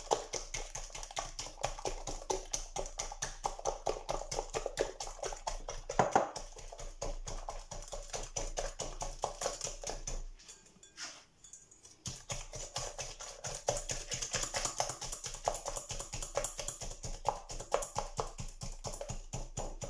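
Hand coil whisk beating eggs and sugar in a glass bowl: a fast, even ticking of the wire against the glass, several strokes a second, with a short pause about ten seconds in. The mixture is being beaten until the sugar dissolves.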